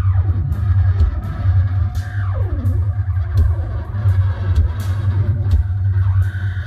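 Live noise music: a loud, steady low drone with two tones sweeping downward in pitch, one at the start and one about two seconds in, and scattered crackling clicks.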